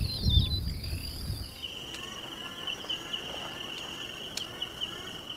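Insects trilling steadily. About a second and a half in, one high trill stops and a slightly lower one takes over. A low rumble sounds in the first second or so.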